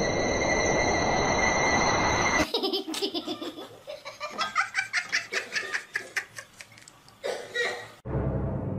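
A steady hiss with high thin tones for a couple of seconds, cut off abruptly by laughter in quick, rhythmic bursts. Music starts abruptly near the end.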